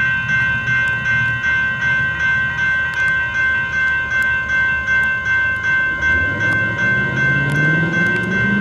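Railroad crossing's electronic bell (GS Type 2 E-Bell) ringing steadily, about three strokes a second. About six seconds in, an approaching train's low hum comes in under the bell and rises in pitch.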